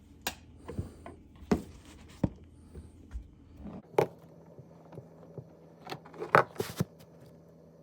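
Scattered clicks and knocks of a wrench working loose the threaded fitting on a dishwasher's water supply line. A faint low hum comes in about halfway.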